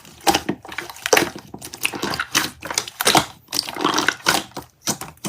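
Slime being squeezed and pressed by hand, a dense run of irregular crackles and crunches.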